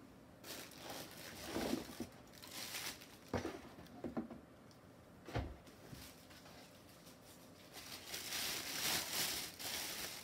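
Plastic packaging rustling and crinkling while a weather station's sensor unit is handled and lifted out of its molded pulp tray, with a few dull knocks. The crinkling grows denser and more continuous from about eight seconds in.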